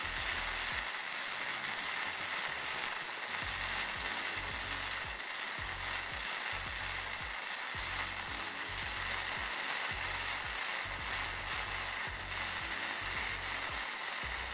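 Seda MIG-200MDP welder arc-welding with gasless flux-core wire: a steady crackling, sizzling arc as a bead is laid. It cuts off abruptly at the very end when the arc stops.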